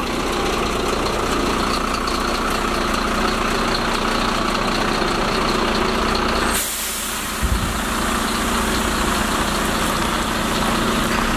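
Parked fire engine's diesel engine idling with a steady hum. A little past halfway a brighter hiss comes in, and a short low thump follows about a second later.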